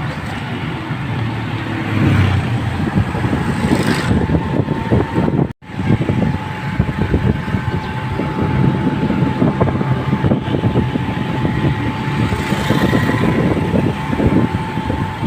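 Travelling vehicle: steady engine and road noise. The sound cuts out for an instant about five and a half seconds in, after which a thin steady tone runs under the noise.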